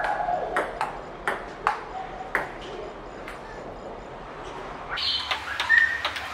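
Table tennis rally: the celluloid ball clicks sharply off the paddles and the table about every half second. There is a short lull a little past the middle, then the clicks start again near the end.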